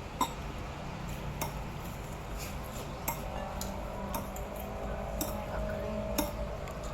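Eating at a plate: about five sharp clinks of tableware, the loudest about a quarter second in, over a low steady background.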